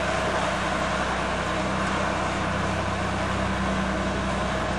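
Steady running noise of a vehicle in motion, with an even low hum and no single events standing out.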